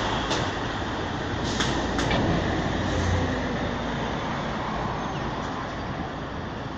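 Steady road traffic noise from a busy multi-lane city road, cars and buses passing, with a few short clicks in the first two seconds.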